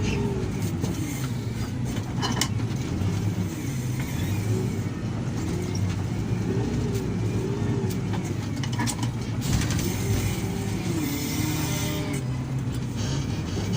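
Heavy diesel engine of earthmoving machinery working under load, its pitch rising and falling as it revs up and down, with a few scattered metallic knocks.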